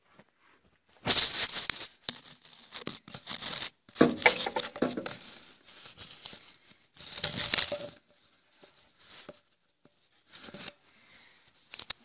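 Hands and a spanner working on a bolt under a VAZ 2106: scraping and rustling handling noise in several bursts, with a few sharp metallic clicks.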